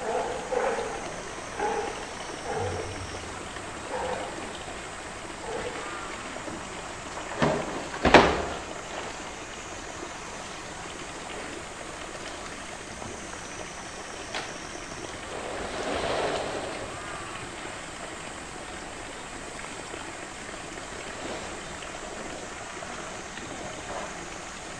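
Steady rush of running water, with a loud hollow knock about eight seconds in, just after a smaller one, as a polar bear's blue plastic drum hits the rock floor.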